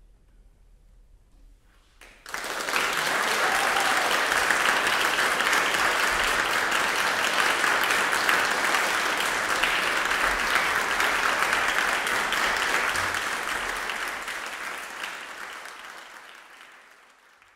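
Audience applauding. The clapping starts suddenly about two seconds in after a brief hush, holds steady, then dies away near the end.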